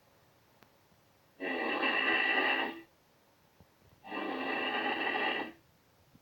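A sleeping man snoring loudly, two long rasping snores about a second and a half each, with quiet breaths between.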